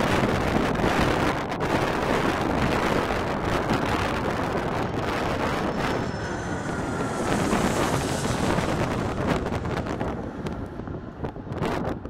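Twin-engine jet airliner on final approach passing low overhead: a steady engine rumble with a faint falling whine as it goes by, fading near the end. Strong gusty wind buffets the microphone throughout.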